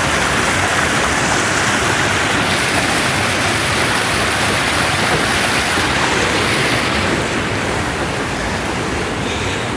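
Creek water rushing steadily over rocks, easing a little near the end.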